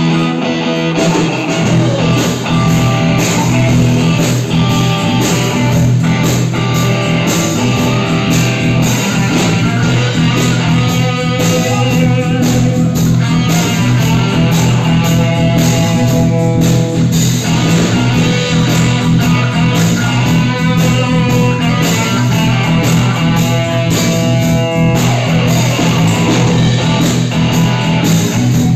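Live rock band playing loud and without a break: electric guitar over bass and drums.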